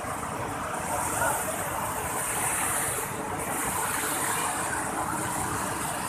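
Steady rush of a small waterfall cascading over rocks, an even hiss without breaks.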